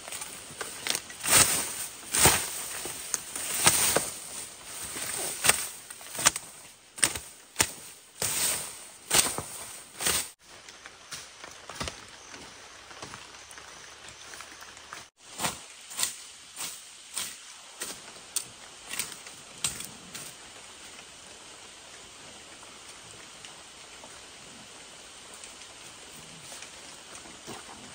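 A machete hacking through ferns and undergrowth: sharp, irregular swishing chops about once or twice a second. They stop and start again briefly, then give way to a steady, even hiss for the last third.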